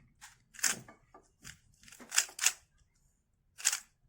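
Plastic speedcube being turned during a solve: a handful of short, sharp clicking turns with pauses between them.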